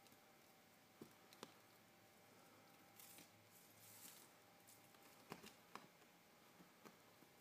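Near silence: room tone with a few faint soft taps about a second in and again past the middle, and a brief light rustle in between. These are a cat pawing at a wand toy's ribbon and stick on carpet.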